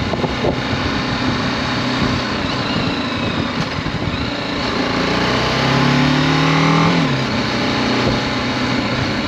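BMW G310GS motorcycle's single-cylinder engine running under way; about five seconds in the revs climb for roughly two seconds, then drop sharply and settle again.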